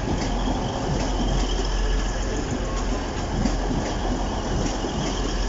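Two coupled Class 185 diesel multiple units passing close by at speed: a steady loud rumble of wheels on rail and underfloor diesel engines, with occasional faint wheel clicks.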